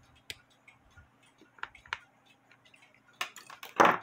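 Light, irregular metallic clicks and taps as a small brass clock wheel and wire pin stock are handled in the fingers. They come singly at first, then several in quick succession near the end, the last being the loudest.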